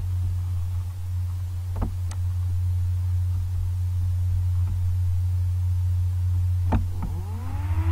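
Steady low electrical hum, with a few short clicks about two seconds in and again near the end, and a rising tone with several pitches near the end.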